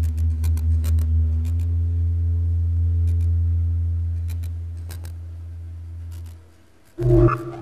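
Live electroacoustic laptop music: a deep, steady low drone that pulses at first and then holds, with scattered sharp clicks high above it. The drone fades out about six seconds in, and a sudden loud low sound comes near the end.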